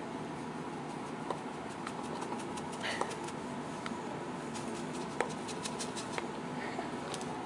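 Salt poured from canisters onto a cat's body in a plastic tub: a soft patter of falling grains with scattered light ticks and clicks.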